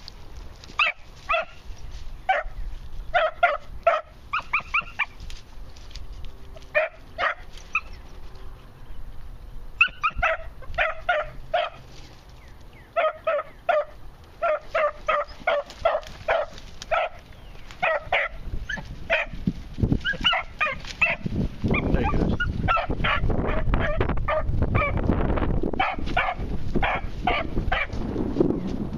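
Beagle pups barking in repeated runs of short, high yips, the voice of young hounds working a scent in brush. In the second half a rising rustle of brush being pushed through joins the yips.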